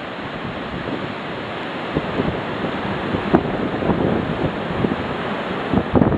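Hurricane Earl's storm wind gusting and buffeting the microphone over a steady rushing roar, with sharper knocks of wind hitting the microphone about three seconds in and near the end.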